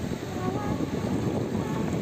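Wind rumbling on the microphone over the wash of surf running up the beach, with a few faint wavering voices or calls in the background.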